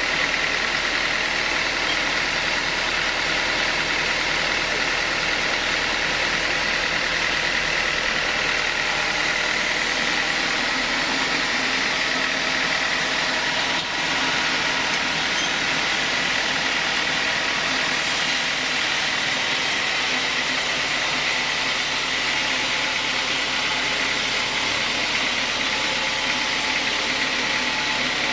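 Sawmill saw running steadily: a dense, even noise with a constant high-pitched whine over it.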